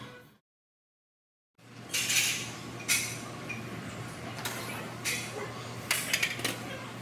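After about a second of silence, gym sound comes in: metal weights clinking and clanking several times over a steady low hum.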